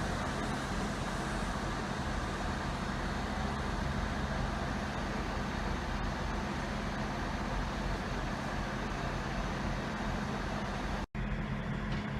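Diesel train engine running steadily: a low, even hum under a broad rushing noise, with no change in pitch. The sound cuts out for an instant near the end.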